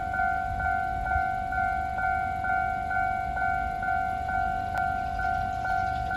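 Japanese railway level crossing's electronic warning bell ringing steadily, an evenly repeated ding about twice a second, signalling that a train is approaching and the crossing is closed.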